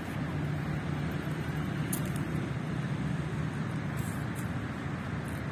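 Steady low rumble of distant road traffic, with a few faint ticks about two and four seconds in.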